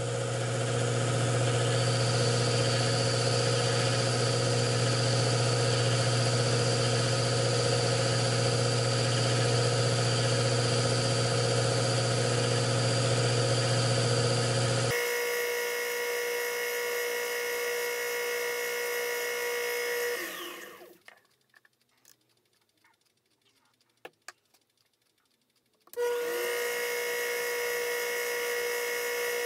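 Taig micro lathe's motor running steadily while turning a graphite rod. About twenty seconds in it is switched off and winds down to near silence, with a couple of faint clicks. A few seconds before the end it starts up again and runs steadily.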